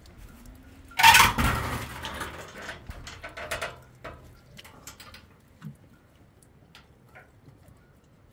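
A sudden loud scraping clatter about a second in, fading over the next few seconds into scattered knocks and clinks.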